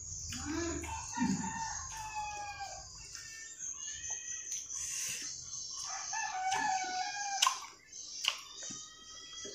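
A rooster crowing twice: a long crow at the start and a shorter one about six seconds in that cuts off sharply.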